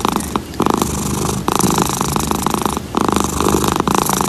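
Domestic cat purring loudly right at the microphone, a fast rattling pulse in stretches of about a second broken by short breaks between breaths.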